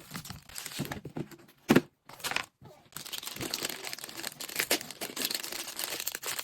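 Plastic grocery packaging crinkling and rustling, with light knocks as items and containers are handled. A sharp knock comes a little under two seconds in, and the crinkling runs on more steadily from about three seconds.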